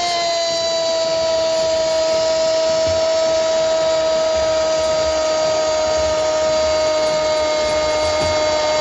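A Spanish-language TV football commentator's long, drawn-out goal cry ("Gooool"), one shout held at a steady high pitch that sags only slightly, over stadium crowd noise.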